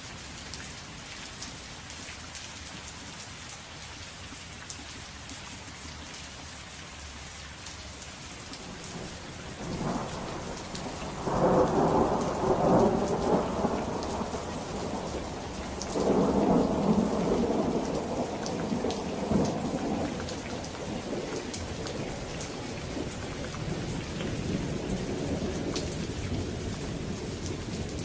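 Thunderstorm: steady rain falling throughout, with rolling thunder rumbling in about a third of the way through, swelling twice and then rumbling again near the end.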